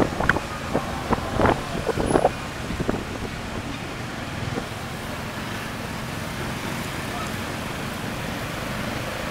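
Street traffic and road noise heard from the pillion of a moving motorbike, with wind on the microphone. There are a few short, sharp sounds in the first couple of seconds, then an even, steady rush.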